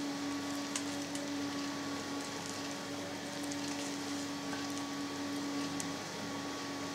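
A steady electrical hum, with faint soft scrapes and light ticks of a silicone spatula working sticky yeast sponge out of a glass bowl into a steel mixing bowl.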